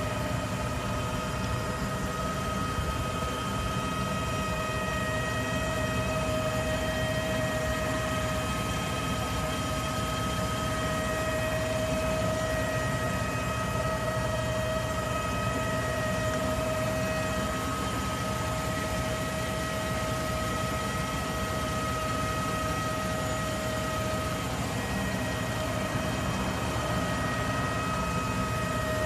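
Electric fuel pump in the fuel tank of an idling Astro Tiger camper van giving out a steady whine, with a fainter, higher tone above it, over the engine's idle rumble. It is an abnormal noise that the owner traces to the fuel tank area and takes for a fuel pump fault.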